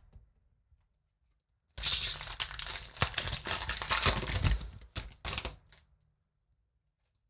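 A Magic: The Gathering booster pack's foil wrapper being torn open and crinkled by hand, lasting about three seconds from just under two seconds in, followed by two short rustles before it stops.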